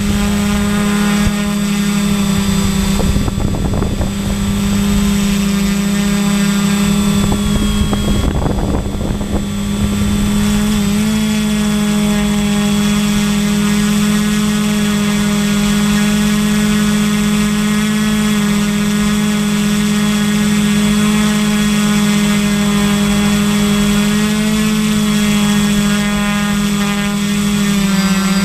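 Radio-controlled multirotor drone's motors and propellers heard from the camera on board, a steady multi-pitched whine. The pitch shifts slightly about eleven seconds in and again near the end. Brief gusts of rushing noise come twice in the first ten seconds.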